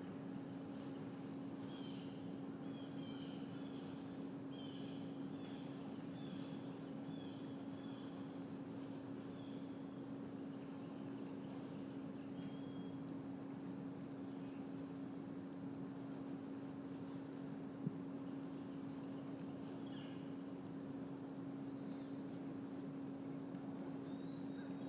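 Outdoor ambience: small birds chirping now and then over a steady low hum, with one sharp click about three-quarters of the way through.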